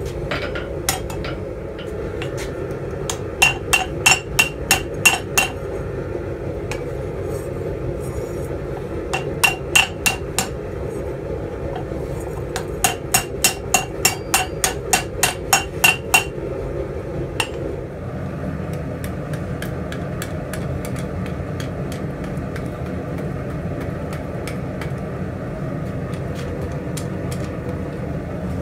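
Hand hammer striking a red-hot steel disc in a steel dishing form, dishing out a ladle bowl: three runs of quick, ringing blows, about three a second, with a few single blows between, over a steady background noise. The blows stop after about 18 seconds and only the background noise remains.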